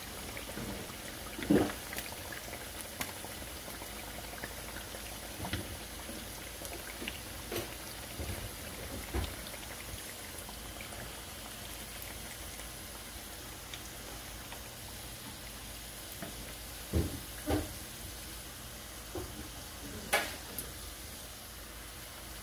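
Beer-battered haddock fillets deep frying in hot oil, a steady sizzle and bubbling. A few short knocks and clicks come through it as metal tongs lift the finished, golden-brown fillets out of the pan.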